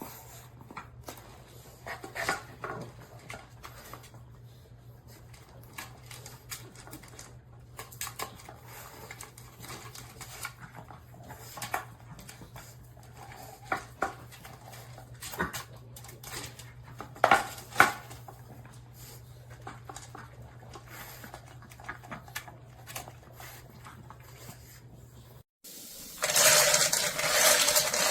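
A Chihuahua eating kibble from a slow-feeder puzzle bowl: irregular clicks and crunches as the food is nosed out of the bowl's ridges. Near the end there is a sudden cut to a much louder, continuous clatter.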